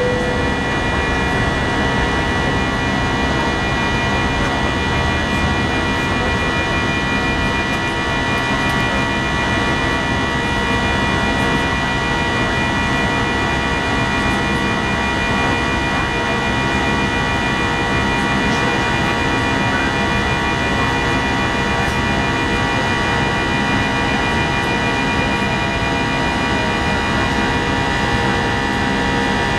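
Airbus A319 jet engines heard from inside the cabin beside the wing during the climb after takeoff: a steady drone with a high, even whine over it.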